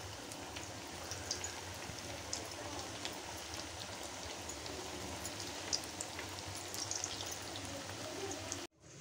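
Potato-bread cheese cutlets deep-frying in hot oil: a steady sizzle with scattered crackles and pops, which cuts off suddenly near the end.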